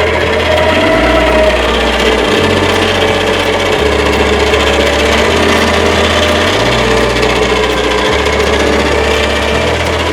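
Electric hand mixer running steadily as it beats cake batter, over background music whose bass steps to a new note about every second.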